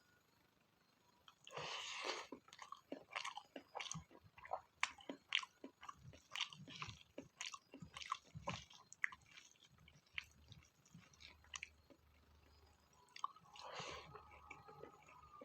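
Close-miked mouth sounds of someone eating spicy pork fat: a louder bite about a second and a half in, then steady chewing with many short clicks and smacks.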